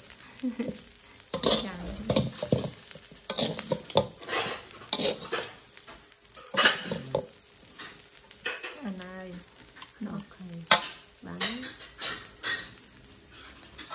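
Metal spatula stirring and scraping fried rice around a metal wok, a run of irregular scrapes and clinks over sizzling.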